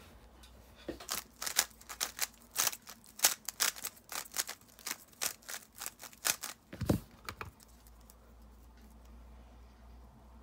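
A 3x3 speedcube being turned by hand: an irregular run of quick plastic clicks and clacks as the layers snap round, with a low thump about seven seconds in, after which the turning stops.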